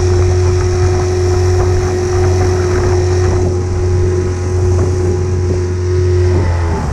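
Small outboard motor driving an inflatable boat at a steady, even pitch, with water rushing along the hull. Near the end the engine throttles back and its pitch drops away.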